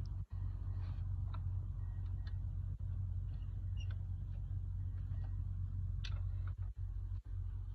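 A steady low hum, with scattered light clicks and taps from the plastic air intake duct being handled and its hose clamp worked.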